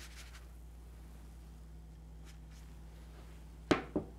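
Faint room tone with a steady low hum, then near the end two sharp clicks and a lighter third: a spatula knocking against a plate as a pancake is set down on it.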